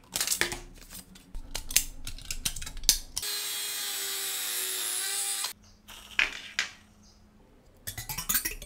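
Scissors snipping through thin aluminium can sheet, a quick run of sharp cuts. Then a handheld rotary tool with a small burr grinds into soft wood, a steady whine for about two seconds that stops abruptly. A few scattered clicks and knocks of handling follow near the end.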